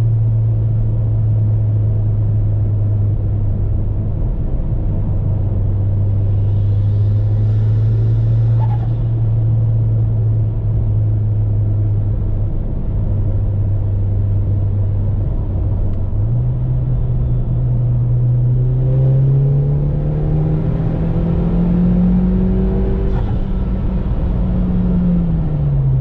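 Mitsubishi Lancer Ralliart's turbocharged 2.0-litre four-cylinder, heard from inside the cabin, cruising steadily at first. About two-thirds of the way in the revs step up and climb under hard acceleration with rising turbo spool, then drop back near the end as the driver eases off.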